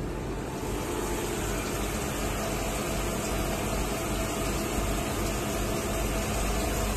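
SG 40 single diamond wire saw running as its wire cuts down through an alumina block, with coolant water pouring and splashing onto the cut. The sound is a steady hiss with a low hum.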